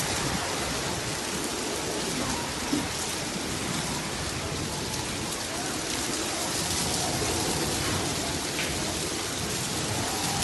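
Heavy rain falling in a storm, a steady even hiss with no letup.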